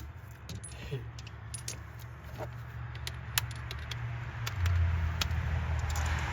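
Light metallic clicks and clinks of sockets and hand tools being handled while working in the engine bay, over a steady low hum that gets louder a little past halfway.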